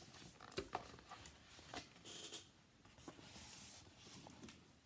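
Faint rustling and a few light taps of a picture book being opened and its pages handled.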